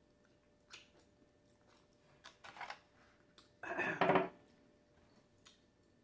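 Eating and tableware sounds: a plastic fork giving light clicks and scrapes against a foil takeout tray, then a louder clatter lasting under a second about four seconds in.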